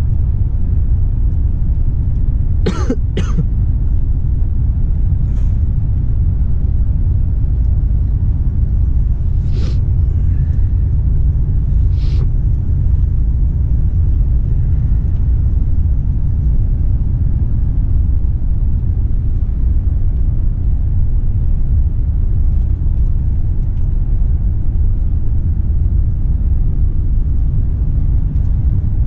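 Steady low drone of a Volvo FH 460 truck's engine and road noise heard inside the cab while cruising. A person coughs twice in quick succession about three seconds in, and a few fainter short sounds follow later.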